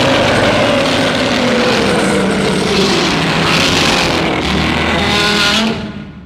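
Godzilla roar sound effect: one long, loud, harsh roar whose pitch slowly falls, fading out near the end.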